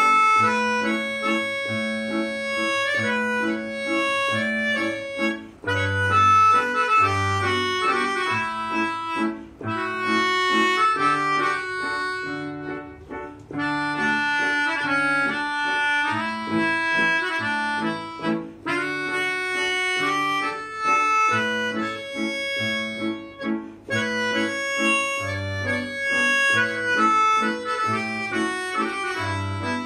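Melodica playing a held, reedy melody in phrases with short pauses, accompanied by an electronic keyboard in a piano voice playing chords and bass notes.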